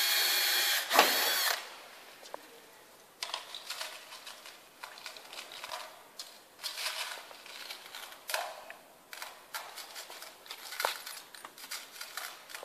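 Cordless drill-driver running steadily on the shower cabin's back panel, then stopping about a second and a half in. After that come scattered clicks, knocks and rattles of parts being handled.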